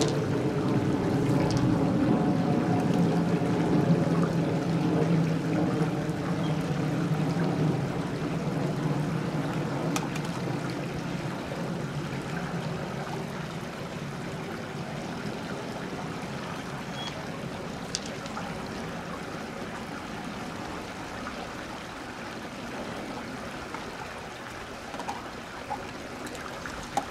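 Steady trickle of running water from a backyard pond. A distant engine hum of even pitch sits under it at first and fades out over the first several seconds, and a few faint clicks come through.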